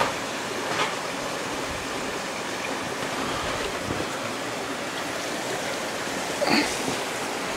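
Steady rush of water running through a narrow rock gorge, with a short sharp sound standing out about six and a half seconds in.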